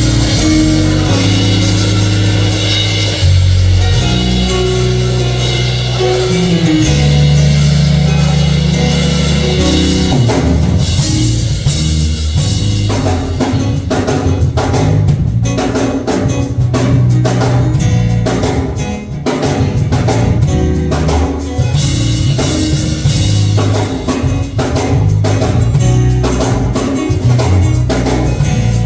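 Church band playing gospel music with drum kit and bass, building into a steady driving beat about a third of the way in.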